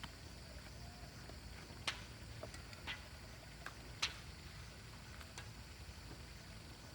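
A few short, sharp clicks or snaps over faint steady background noise, the loudest about two and four seconds in.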